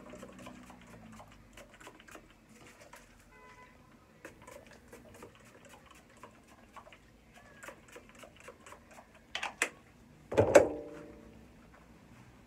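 Quiet handling noises in a small room: scattered light clicks and rustle, then two sharp clicks about nine seconds in and a louder knock with a brief ring just after, like an object being set down.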